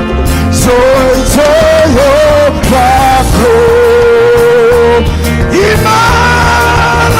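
Live gospel worship band music with a lead voice singing long held notes that slide from one pitch to the next, over steady band accompaniment.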